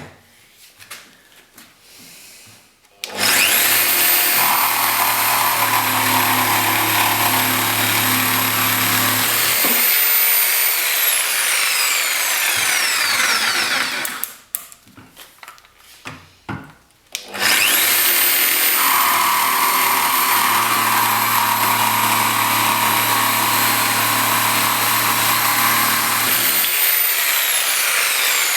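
Metabo 720-watt jigsaw cutting wood in two runs. Each time the motor whines up to speed, saws for several seconds, then winds down with a falling whine; the second run starts about halfway through.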